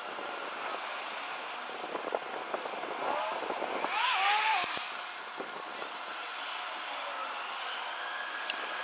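Outdoor ambience with distant traffic, played back sped up: a steady hiss with scattered faint ticks. About four seconds in it swells into a louder rushing sound carrying a short warbling chirp.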